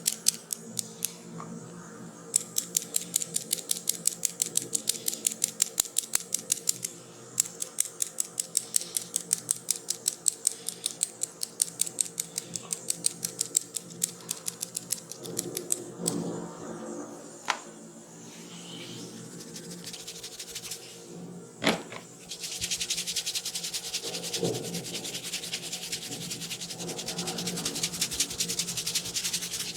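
Rapid, evenly spaced clicking, several clicks a second, through the first half. About 22 seconds in there is a sharp click, and then a steady scratchy rubbing takes over.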